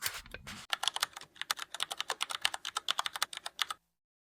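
A rapid run of sharp clicks, like typing on a computer keyboard, about eight a second, after a brief rustle. It stops abruptly near the end.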